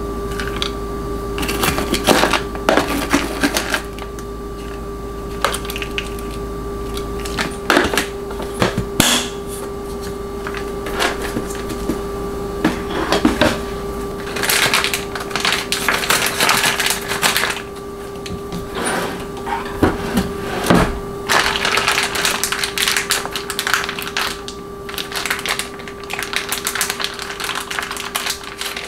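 Close-up food-preparation sounds: a plastic spatula scooping and scraping yogurt into a wooden bowl, with irregular clicks, taps and rustles of containers and utensils on a stone counter. A faint steady hum runs underneath.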